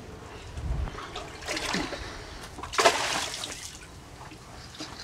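Water splashing and sloshing in a few short bursts, the loudest about three seconds in.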